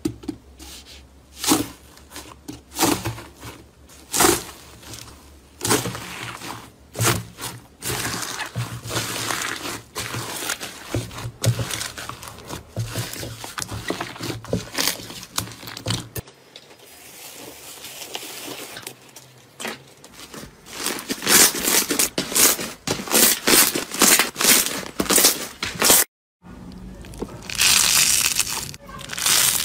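Slime being squeezed and pressed by hand: irregular crackling, popping and crunching, with a brief break about 26 seconds in.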